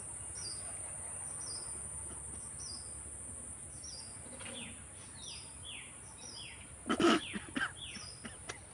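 Steady high-pitched insect drone with birds calling over it in short, falling chirps about twice a second. About seven seconds in there is one brief, loud burst close to the microphone.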